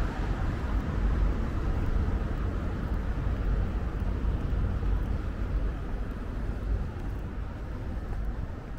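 Road traffic noise: a steady rumble with no distinct engine note, easing slowly toward the end.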